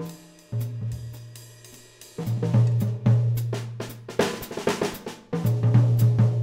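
Small band starting a piece: drum kit playing a groove of snare, hi-hat, cymbals and bass drum, with electric bass holding long low notes that come in about half a second in. The playing gets fuller and louder about two seconds in.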